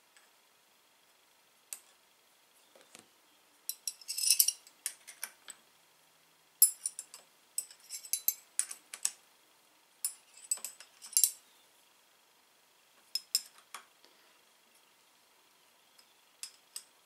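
Small spanner clinking and clicking on the clamp bolts of a motorcycle front brake master cylinder as it is fitted and tightened onto the handlebar. The clinks come in several bursts of quick metallic clicks.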